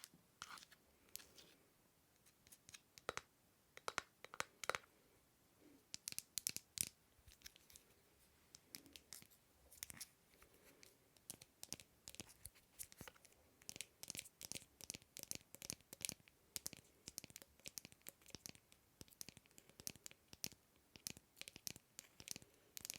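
An object being handled or scratched close to the microphone for ASMR, making a rapid, irregular run of crisp clicks and crackles that grows denser after the first few seconds.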